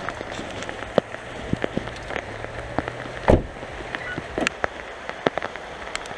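Heavy rain pouring down, a steady hiss with many scattered sharp drop taps close by. One louder knock about three seconds in.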